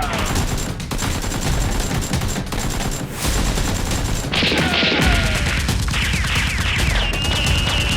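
Rapid, sustained gunfire sound effects dubbed over a Nerf blaster battle, shot after shot, with falling whistles about four to six seconds in.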